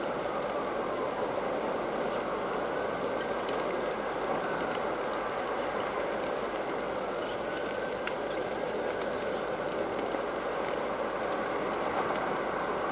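Steady rushing noise of stormy weather, wind and rain, with faint short high chirps now and then.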